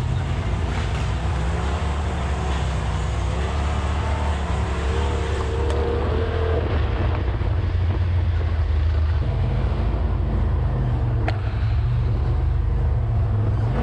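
Side-by-side UTV's engine running steadily while driving along a trail.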